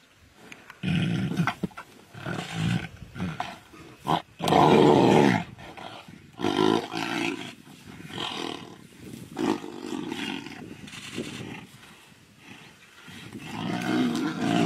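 Tigers growling and snarling at each other over a kill: a run of harsh growls about a second apart, the longest and loudest about four seconds in, swelling again near the end.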